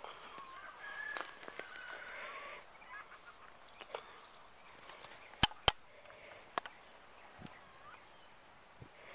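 A long, wavering bird call in the first two and a half seconds, then two sharp cracks a fraction of a second apart about five and a half seconds in.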